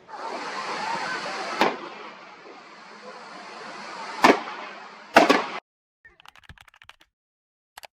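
Gunshots in a boar hunt, over a steady rushing background: a single shot, another about three seconds later, then two shots in very quick succession, after which the sound cuts off abruptly.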